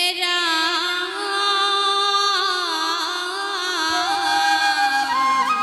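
Women's voices singing a long held note of an Assamese dihanam devotional song, the pitch stepping slightly as it is sustained. A flute comes in near the end.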